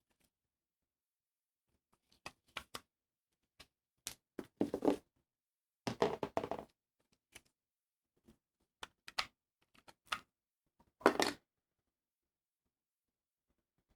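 Hands handling recorder gear and its packaging: scattered clicks and knocks of plastic parts, with three short rustling scrapes, the loudest near the end.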